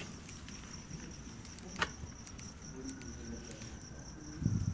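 Crickets trilling steadily in a high continuous tone, with a sharp click a little under two seconds in and a low thump near the end.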